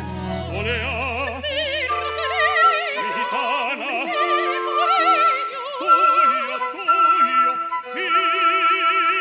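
Soprano and tenor singing an operatic duet together in wide vibrato over a small orchestra; the low bass notes drop out about two and a half seconds in.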